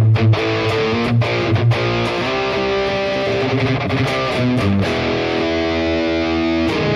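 High-gain distorted electric guitar played through a Headrush Prime modeling unit on its rhythm scene, a home-made clone of a Diezel VH4 amp: a chugging riff with a few short stops, then a long held chord that is cut off at the end and dies away.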